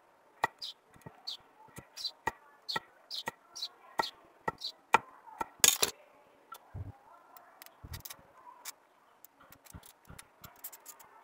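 Knife cutting and trimming a block of styrofoam into a small fishing float: sharp strokes about twice a second for the first five seconds, one louder stroke near the six-second mark, then sparser light ticks as the foam is handled.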